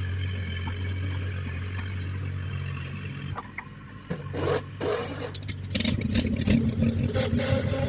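John Deere 420C crawler's two-cylinder engine running steadily, then dropping off about three seconds in, with a few sharp knocks and scrapes. About six seconds in the engine comes up louder, revving under load.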